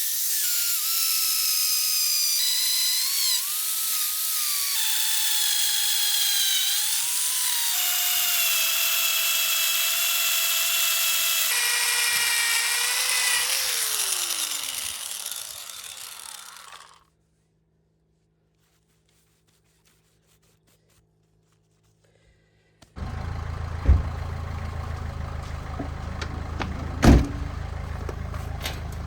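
Power drill boring into a tree stump, its motor whine shifting up and down in pitch under load, then spinning down and stopping about fifteen seconds in. After a few seconds of near silence, a steady low machine hum starts, with two sharp knocks.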